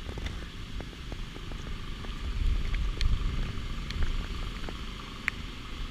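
Gusty wind buffeting the microphone: an uneven low rumble that swells about two to three seconds in, with a few small ticks scattered through it.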